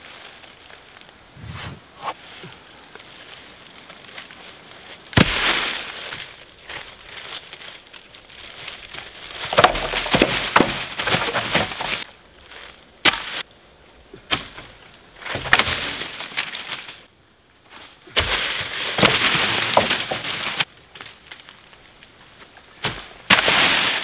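Dry leaves crunching and rustling underfoot, with dry sticks snapping and cracking, while firewood is gathered on a leaf-covered slope. The sound comes in irregular bursts with quieter gaps between them.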